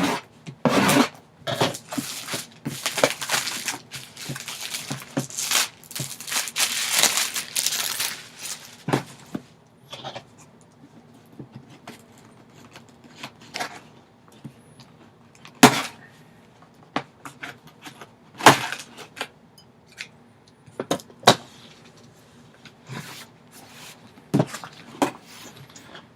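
Sealed box packaging being opened by hand: seals torn and plastic and cardboard rustling for the first eight or nine seconds, then scattered sharp taps and clicks as the package is handled.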